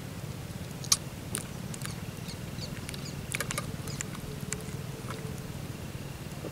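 Scattered sharp clicks and taps from fishing tackle and a freshly landed tilapia being handled. The loudest click comes about a second in and a quick run of them about three and a half seconds in, over a steady low hum.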